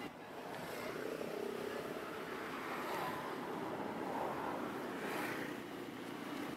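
Steady motor-vehicle noise, like passing traffic, growing a little louder through the middle and easing near the end.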